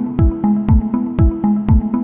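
Electronic background music with a steady kick drum, about two beats a second, under held synth chords.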